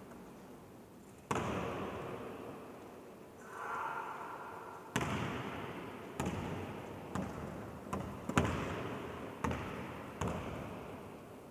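Basketball bouncing on a gym floor, each bounce echoing long in a large empty sports hall: one bounce about a second in, then from about five seconds a run of uneven dribbles, two in quick succession near the middle of the run.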